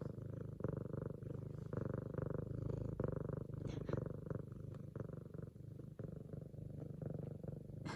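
An F2 Savannah cat purring loudly and continuously, in even breath-by-breath phrases about a second long.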